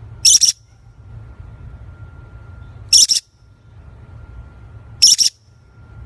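A young parrot giving short, harsh, high-pitched squawks, three in all about two and a half seconds apart, the last one doubled, over a low steady background hum.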